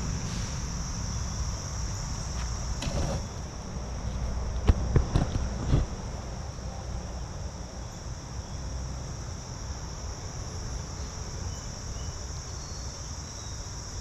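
Steady high-pitched chorus of insects in the trees. A few close knocks and rustles about three to six seconds in are the loudest sounds.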